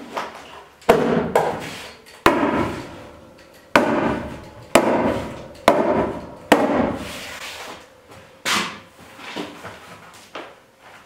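A hammer striking repeatedly, fastening tar paper to a board wall: about seven sharp strikes, irregularly spaced roughly a second apart, each with a short ring.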